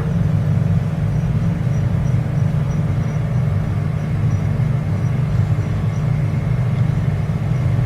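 Steady, loud, low drone of a running asphalt plant's machinery heard from inside its control station.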